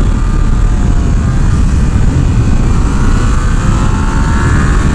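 Motorcycle engine under way, with its pitch dropping and then climbing again as it accelerates, over heavy wind rumble on the helmet microphone. The bike is freshly serviced and now allowed to rev higher, and it sounds much better.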